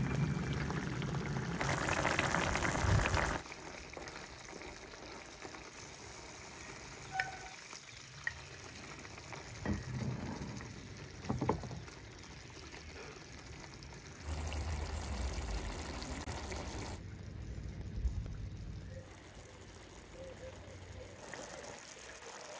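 Tomato sauce simmering in a deep frying pan on a portable gas stove, while fried eggplant slices go in and are stirred with a wooden spoon. About two seconds in there is a louder rush of sizzling-pouring noise for a second or so, and a few soft knocks follow a few seconds later.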